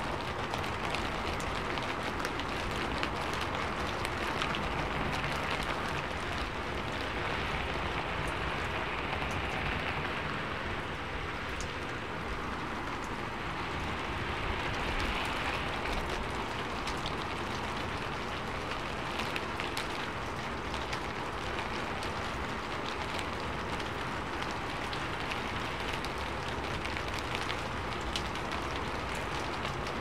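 Steady rain falling on a rooftop: an even hiss full of many separate drop ticks.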